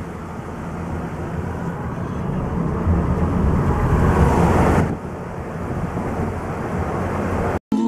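Road noise inside a moving car: low tyre rumble and wind noise, swelling from about three seconds in and dropping back about two seconds later, then cutting off abruptly just before the end.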